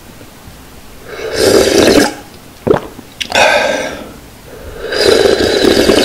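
A person slurping ramen broth straight from the rim of a thin aluminium pot: three long slurps, with a couple of short gulps between the first two.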